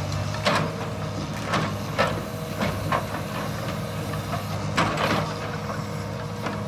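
Diesel engine of a tracked log loader running steadily, with several sharp, irregular knocks and clunks as its grapple handles logs.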